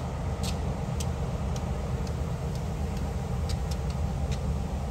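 Diesel locomotive engine rumbling low and steady as the train approaches slowly, with scattered light clicks over it.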